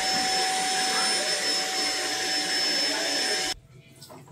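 Handheld vacuum cleaner running with a steady whine, switched off abruptly about three and a half seconds in.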